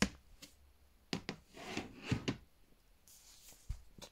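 Handling noise from yarn and its container being rummaged through: several short clicks and knocks with brief rustles in between.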